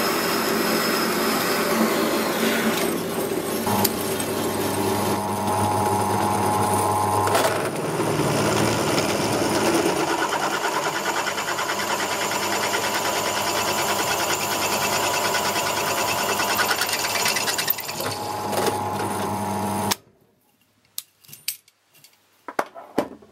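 A metal-cutting bandsaw runs through a piece of steel angle. Partway through, the sound gives way to a drill press boring a hole through the steel angle. The drill stops abruptly near the end, followed by a few sharp clicks and knocks as the steel piece is handled.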